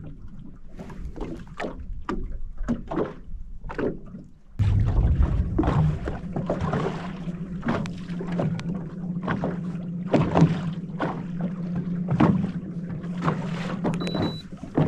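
Small waves slapping against a boat's hull. About four and a half seconds in, a steady boat-motor hum comes in suddenly and keeps running, with the slaps continuing over it.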